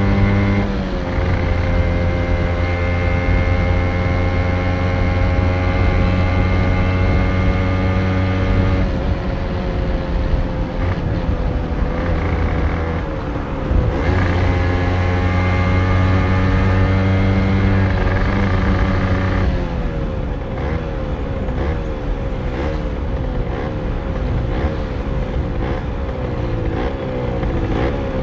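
Honda NS-1's 49cc liquid-cooled two-stroke single-cylinder engine running at steady revs, dropping off briefly twice. In the last third it is revved in quick repeated blips, about one a second.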